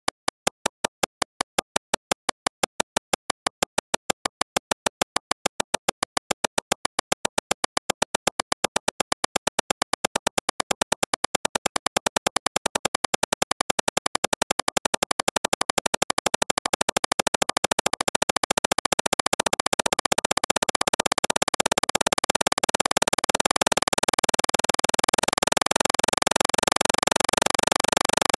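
Synthesized imitation of a Toyota 2JZ engine, made from a looped sequence of clicks in a sound-sequencer app. The clicks start at a few a second and speed up steadily until they merge into a continuous buzz about two-thirds of the way in, like an engine revving up on a dyno.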